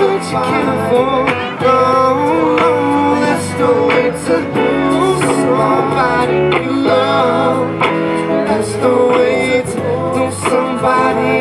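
A man singing into a microphone while accompanying himself on a Gibson electric guitar, a held, sliding vocal line over steady plucked guitar notes.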